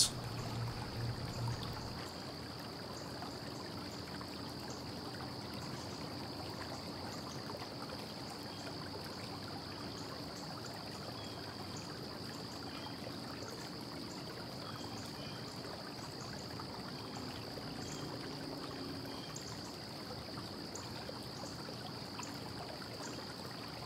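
Steady low background hiss with a faint, constant high-pitched whine, unchanging throughout; no tool or impact sounds stand out.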